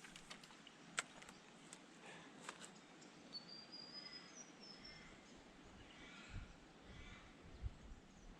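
Quiet outdoor ambience with a few sharp clicks in the first couple of seconds and a brief, high chirping bird call about three to four seconds in.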